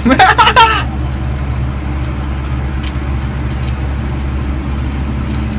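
A steady low hum with a faint noise haze, after a brief voice in the first second.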